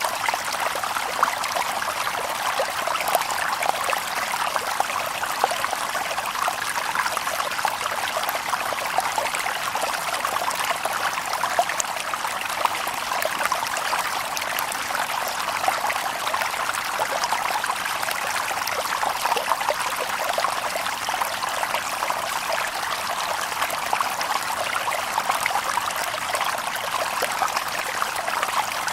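Shallow stream babbling over stones: a steady rush of water with many small splashes and gurgles, light and bright rather than deep, with no birds.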